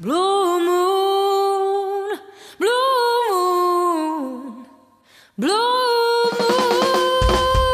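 A singer's voice, unaccompanied, holds a long note that scoops up into pitch, then sings a second phrase that slides downward and fades. After a short pause the voice swoops up into a third long held note, and about a second later the backing band comes back in under it with strummed chords.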